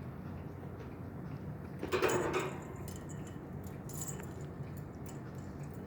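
Pet parakeets in their cage with light clicks and jingles, like small toys and bars being knocked. A brief louder rattle comes about two seconds in.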